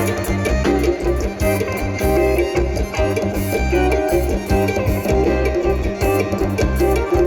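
Music with a steady bass beat and a plucked-string melody.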